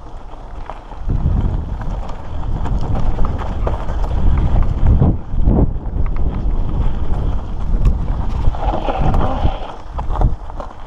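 Mountain bike rolling over a rocky dirt singletrack: tyres crunching on gravel and stones, the bike rattling and knocking over bumps, with a steady wind rumble on the microphone.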